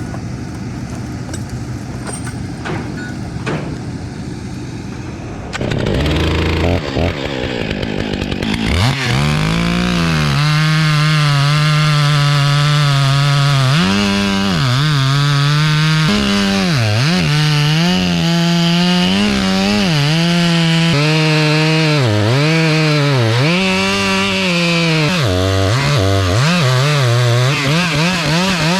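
A chainsaw revs up about six seconds in and runs at high revs cutting into a big elm log, its pitch dipping again and again as the chain loads in the cut and then recovers. Before it, a lower, steadier engine noise.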